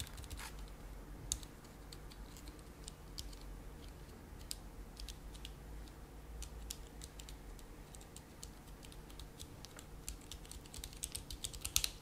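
Cherry MX key switches on a freshly soldered, partly built Tex Yoda II keyboard pressed one after another to test that they register. The clicks are faint and scattered at first and speed up into a quick run of presses near the end, over a steady low hum.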